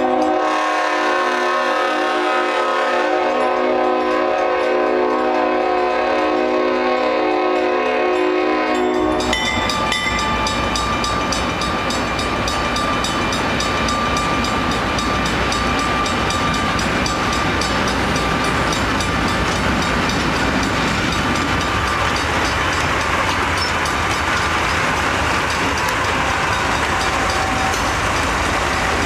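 A diesel locomotive's multi-chime air horn sounds one long chord until about nine seconds in, then stops. The train then runs through the grade crossing with a heavy, steady rumble of engine and wheels, over the even ringing of the crossing signal bell.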